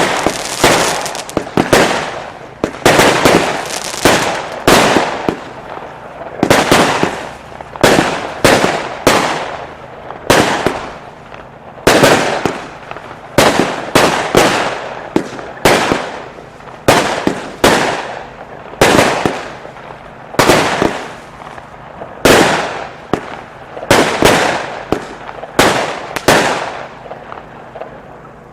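Weco 'London' firework firing a long series of sharp bangs, about one a second with some coming in quick pairs, each fading out over a fraction of a second. The shots stop shortly before the end.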